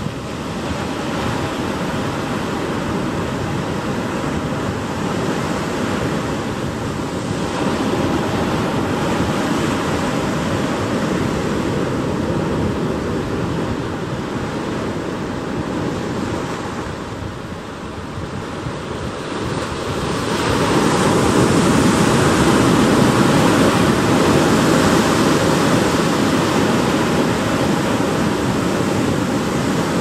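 Ocean surf breaking and washing among rocks on a rocky shore, a steady rush of water that swells a little about a quarter of the way in, eases briefly, then grows louder from about two-thirds through.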